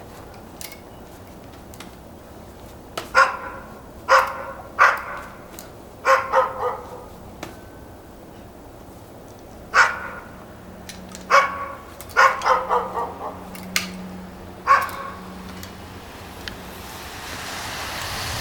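A dog barking: single barks and quick runs of two to four, about fourteen in all, with faint clicks between. A rushing noise swells near the end.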